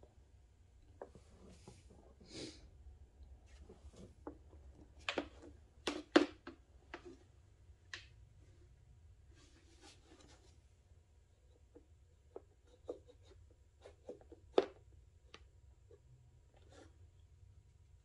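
Faint, scattered handling noises: light clicks, knocks and rustles as a plastic gas can and rubber fuel line are worked by hand. Two sharper clicks stand out, about six seconds in and again about fourteen seconds in.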